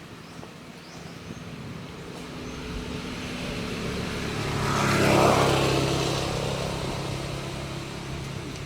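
A motor vehicle drives past, its engine hum and tyre noise growing louder to a peak about five seconds in and then fading away.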